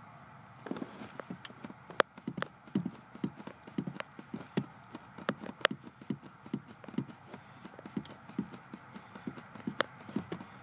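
Accelerator pedal of a GM car pumped rapidly with a leather Cole Haan dress shoe: a run of uneven knocks and clacks from the pedal and shoe, about three a second, starting about a second in.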